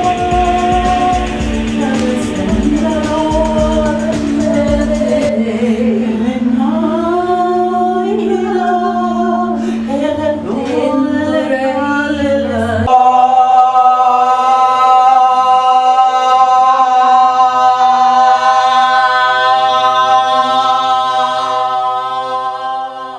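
Voices singing wordless, drawn-out notes, with sliding pitches over a steady low drone; about halfway through a single long note is held steadily and fades away near the end.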